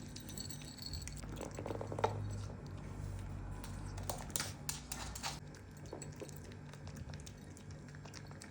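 Chihuahua puppy eating: soft chewing with small clicks, busiest about four to five seconds in, over a steady low hum.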